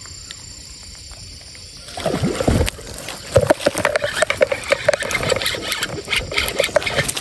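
Low steady hiss, then about two seconds in a louder run of quick, rhythmic clicking and rattling as a spinning reel is cranked to wind in line, with hands gripping the rod.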